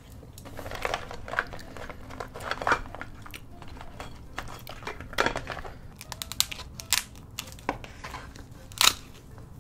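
Close-miked clicks, crackles and snaps of king crab shell being handled and broken open to get at the meat, coming in irregular bursts.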